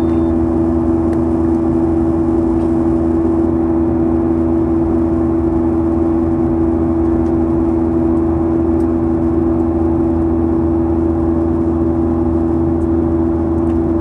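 Boeing 737-900ER's CFM56-7B turbofan engines and airflow heard from inside the passenger cabin during the climb after takeoff: a steady, unchanging drone with two strong held low tones over a low hum.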